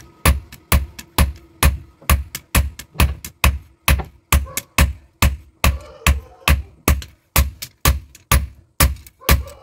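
Hammer blows forging the red-hot blade of a curved kitchen knife on an anvil, a steady rhythm of about two strikes a second. Each strike is sharp, with a low thud beneath and a faint ring between blows.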